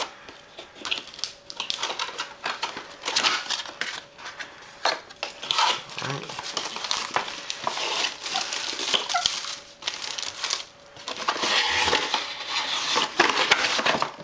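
Cardboard box and plastic-bagged contents being handled and unpacked: irregular rustling, scraping and crinkling of the packaging with small knocks, the crinkling denser and louder near the end.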